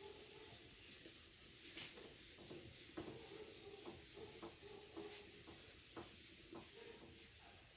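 Faint rubbing of a handheld eraser wiped across a whiteboard, with scattered light ticks and a couple of brief swishes.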